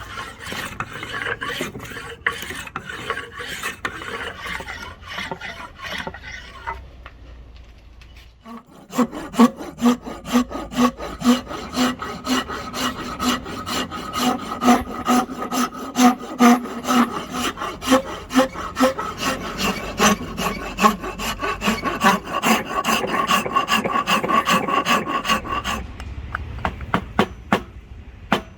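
Hand rasp or file scraping along a rosewood axe handle in repeated strokes: quick strokes at first, then after a short pause a regular rhythm of about two strokes a second, each with a faint ringing pitch.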